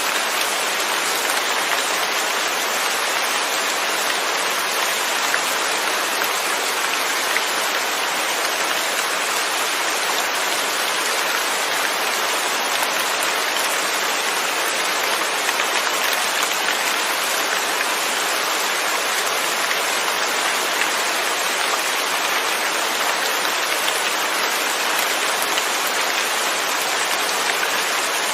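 Steady rain falling, with no thunder: an even, unbroken hiss of drops on surfaces.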